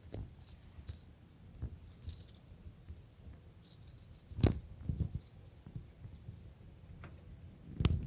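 Intermittent light rustling and rattling, with a louder soft knock about halfway through and another near the end.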